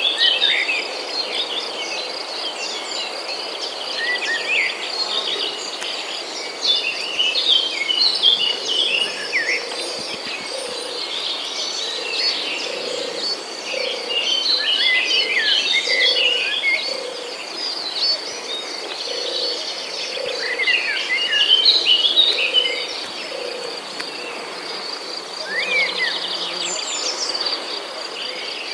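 Insects trilling steadily with many small birds chirping over them, and a soft low note repeating about once a second through the middle.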